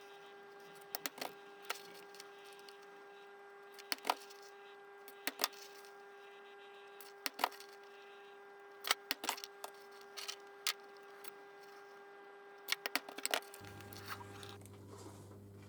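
Hammer striking hollow gasket punches to cut the stud and case-screw holes in a homemade gasket: sharp knocks in irregular groups of one to three, over a steady background hum.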